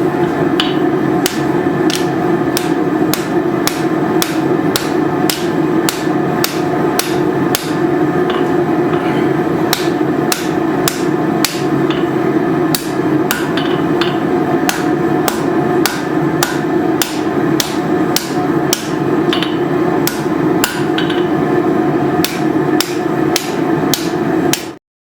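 Hammer blows forging a hot piece of leaf-spring steel into a knife blade, struck at a steady pace of about two a second over a continuous drone.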